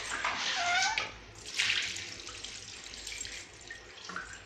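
Water poured from a plastic mug splashing over a baby and onto a tiled floor, loudest about a second and a half in. A baby gives a brief high-pitched vocal sound near the start.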